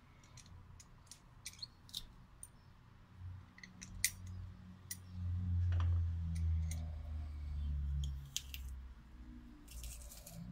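Stainless-steel garlic press crushing garlic cloves as it is opened and squeezed, giving a series of sharp metallic clicks. A low rumble runs for a few seconds midway.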